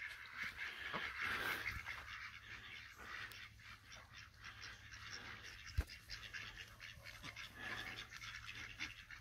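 Faint ambience of a duck flock with soft scattered bird and duck calls, and one sharp knock about six seconds in.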